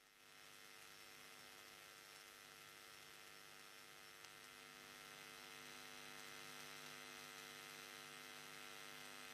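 Near silence: a faint, steady electrical mains hum with a light hiss.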